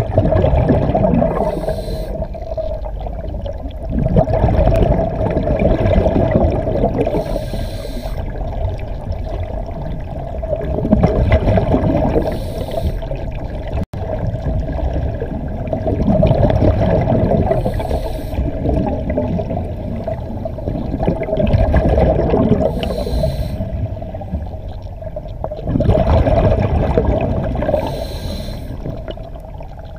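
Scuba diver breathing through a regulator underwater: a short hiss of inhalation, then a longer rumbling gurgle of exhaled bubbles, repeating about every five seconds. Heard muffled through an underwater camera housing.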